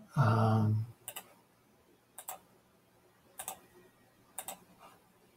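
Computer mouse clicking: four or five sharp click pairs, each a button press and release, spaced about a second apart. Just before them a man gives a short hummed 'hmm'.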